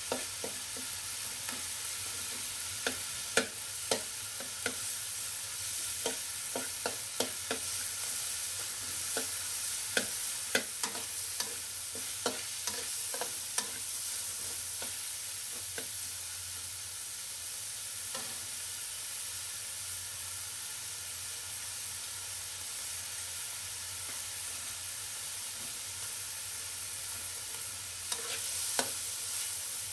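Minced pork, garlic and shallots sizzling in a wok while a metal spatula scrapes and clacks against the pan. The clacks come thick and fast through the first half, thin out, then pick up again briefly near the end.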